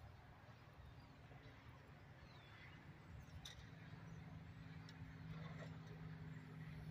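Near silence: faint outdoor ambience with a low steady hum that grows louder in the second half, a faint chirp about two and a half seconds in and a single faint click about a second later.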